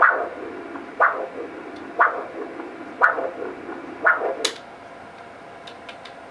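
GE Vivid-i ultrasound machine's pulsed-wave Doppler audio from its 8L vascular probe: a falling whoosh about once a second, the sound of blood flow pulsing with each heartbeat. It stops about four and a half seconds in as the Doppler is switched off, and a few faint clicks follow.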